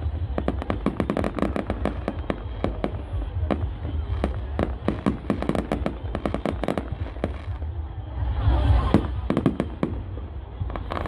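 Fireworks display: a rapid, near-continuous run of sharp bangs and crackles from bursting shells over a low rumble, swelling to a louder, denser burst about eight and a half seconds in.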